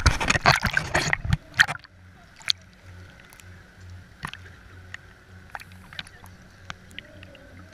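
Water splashing and sloshing over a camera housing at the sea surface for the first second or so, then the low, evenly pulsing hum of an idling dive boat engine with scattered small ticks.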